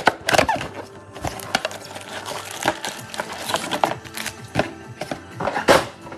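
Cardboard trading-card mega box being opened and handled, with the foil-wrapped card packs slid out and set down in a stack: a run of crinkles, scrapes and taps, loudest about half a second in and again near the end. Faint background music underneath.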